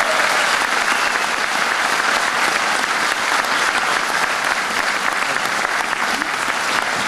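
Audience applauding, a dense steady clapping that holds at one level.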